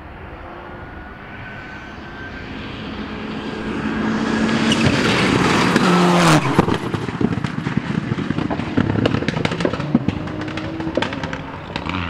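Rally car engine at full throttle, growing louder as the car approaches. About six seconds in it passes close by with a sharp drop in pitch, then pulls away amid a quick run of sharp cracks and pops.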